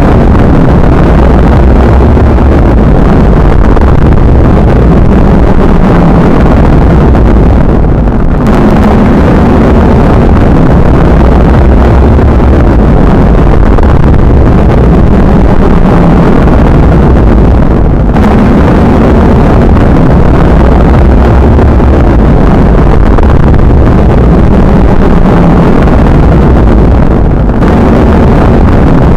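Heavy rain sound effect: a loud, steady, rumbling wash of noise, with a brief dip about every ten seconds where the recording loops.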